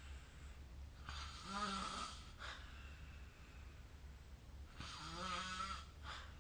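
A sleeping person snoring faintly: two snores, one about a second in and another near the end, each a rough rasp on the breath.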